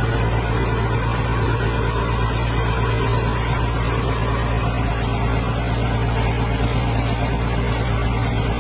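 Tractor's diesel engine running steadily under load while pulling a mounted plough through the soil.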